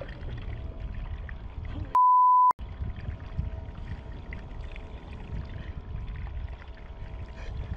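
Steady water and wind noise on the microphone of a kayak-mounted camera. About two seconds in, all of it cuts out under a loud, flat half-second bleep tone of the kind used to censor a word.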